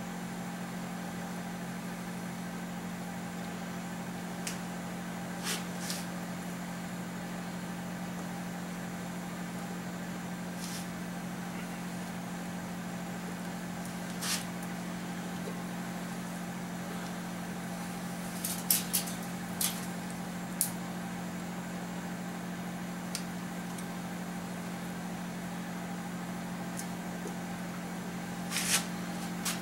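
A steady low hum, like a fan or heater motor, with scattered light clicks and taps of engine parts being handled; a small cluster of clicks comes about two-thirds of the way through and another near the end.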